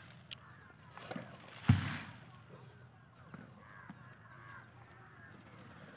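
A single loud thump about two seconds in, with a couple of smaller clicks before it, over a faint outdoor background with a few soft chirping calls.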